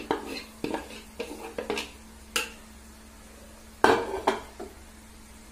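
Wooden spatula scraping rice off a plate and knocking against the metal rim and sides of a kadhai while the rice is spread in the pan: a string of short taps and clatters, the loudest two about four seconds in.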